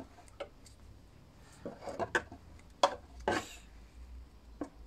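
A grease gun hose and its metal coupler being handled: a series of short, sharp clicks and knocks, the loudest nearly three seconds in, with a brief rubbing scrape just after it.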